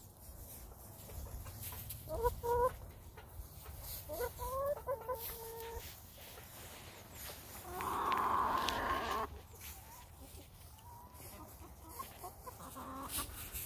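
Hens clucking and giving short rising calls while they forage, with light clicks from pecking and scratching. About eight seconds in a louder, harsh noise lasts over a second.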